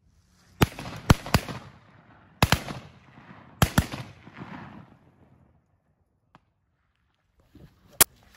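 Duck hunters' shotguns firing a volley from the blind: about seven shots in quick succession over the first four seconds, each trailing off in an echo, then one more shot near the end.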